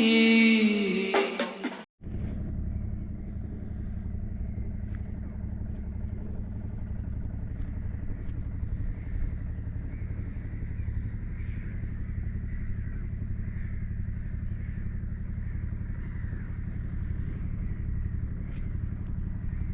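The intro song ends about two seconds in, then a sailing yacht's inboard engine idles steadily with a low, even hum while warming up.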